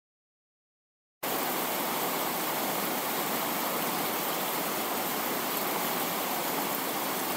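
A steady hiss of static-like rushing noise that starts abruptly about a second in and cuts off suddenly near the end.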